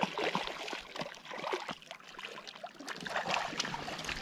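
Water splashing and sloshing close by, in many small irregular splashes.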